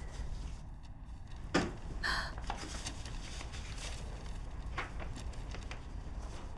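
Quiet handling sounds over a low steady hum: a sharp click about one and a half seconds in, a brief rustle just after, and another small click near five seconds.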